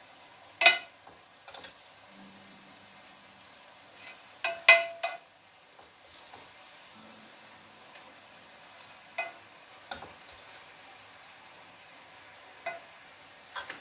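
Faint steady sizzle of rice frying over potato slices at the bottom of a pot on a gas flame, as the tahdig crust forms. A metal utensil knocks against the pot several times; the loudest knocks come about half a second in and around four and a half to five seconds in, ringing briefly.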